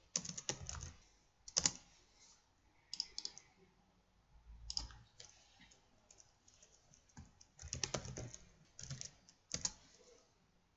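Computer keyboard typing in short bursts of keystrokes with pauses between them, as a file name is typed.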